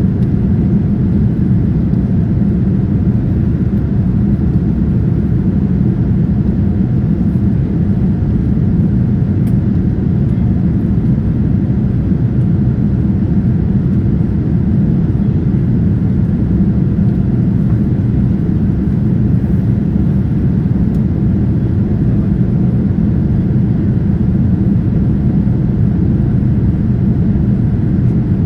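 Steady low drone inside the cabin of a Boeing 787-9 airliner, the engines and rushing air making an even rumble that neither rises nor falls.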